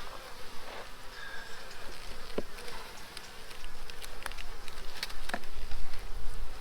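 Honeybees buzzing around an open, crowded hive, with a few light clicks and a low rumble about two thirds of the way through.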